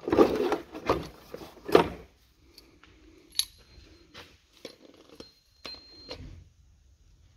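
Steel tool pieces clinking and clattering as a camshaft locking tool is handled: three loud knocks in the first two seconds, then lighter clicks with a short high metallic ring twice.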